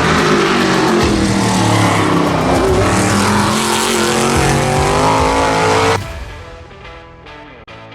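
Loud engine revving hard, its pitch gliding up and down like a race car, cut off abruptly about six seconds in. Quieter plucked guitar music follows.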